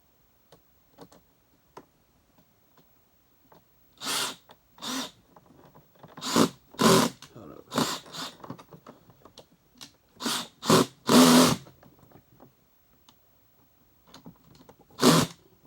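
Power screwdriver driving screws into a Hoover upright vacuum's plastic housing in short bursts, about ten between roughly four and eleven seconds in and one more near the end, fastening the lower holder piece.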